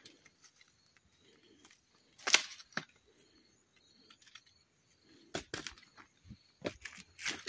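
Dry twigs and brush crackling and snapping in scattered bursts: one sharp snap a little over two seconds in, then a denser run of crackles over the last two seconds.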